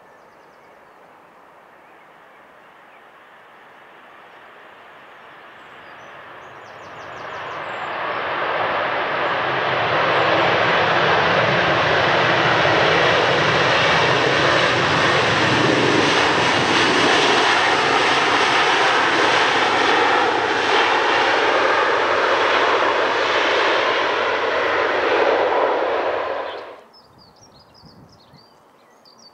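Ryanair Boeing 737's jet engines and the hiss of spray off its wheels on a wet runway during the landing roll. The noise grows from faint to loud over the first ten seconds as the jet passes, holds, then cuts off suddenly about four-fifths of the way through, leaving faint birdsong.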